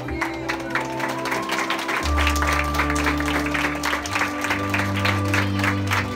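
Background music with long held chords, with the chord changing about two and four seconds in, over steady applause from a crowd of students clapping.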